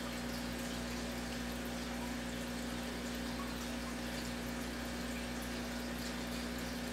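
Aquarium filtration running: a steady low hum with faint water bubbling and trickling.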